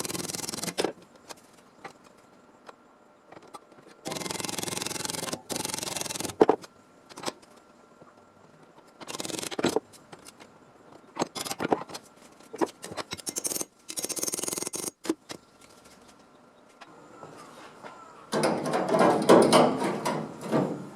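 Repeated bursts of harsh noise from metalworking on a car's floor panel, each a second or two long, with scattered clicks and knocks between them; the last burst, near the end, is the loudest.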